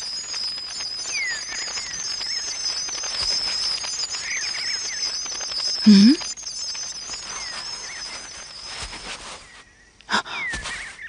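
Cartoon woodland ambience: a continuous high wavering chirping trill with short falling bird-like chirps every few seconds. A brief low voice sound comes about six seconds in, and near the end the trill stops and two sharp clicks follow.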